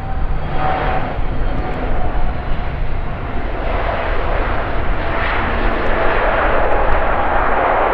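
Jet engines of an Airbus Beluga A300-600ST, General Electric CF6-80C2 turbofans, as the aircraft passes on the runway: a steady roar with a faint whine early on, swelling louder from about four seconds in.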